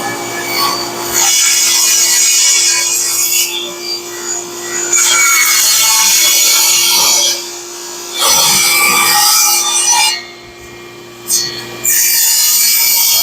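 Power saw cutting through a thick black walnut slab, loud and steady. The cutting noise drops off briefly twice, about two-thirds of the way through and again near the end.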